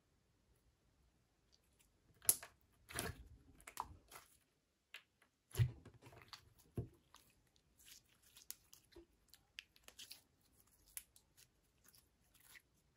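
Clear orange pre-made Elmer's Gue slime squished and kneaded by hand: sticky crackles and pops. A few louder squelches come about two and about six seconds in, then a run of small crackles.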